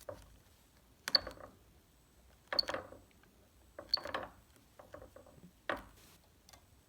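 Four sharp mechanical clicks, each followed by a brief rattle, about a second and a half apart, from a digital torque wrench working the axle of a pulley rig that lifts a hanging weight.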